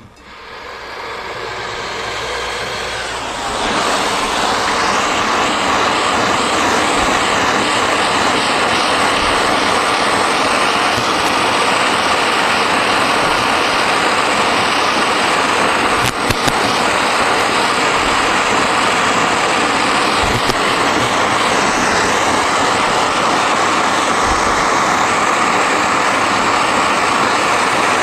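Hose-fed gas torch burning with a steady hissing roar as it heats a sheet-metal tank seam for soft soldering. The sound builds over the first few seconds, then holds even.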